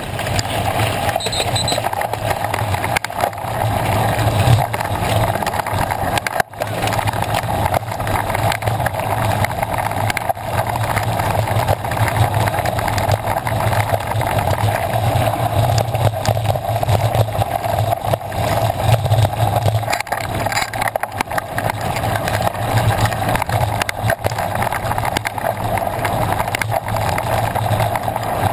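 Mountain bike riding over a dirt and gravel track, heard from a camera on a moving bike: a steady rumble of tyres on gravel and wind, with constant small rattles and knocks from the bike.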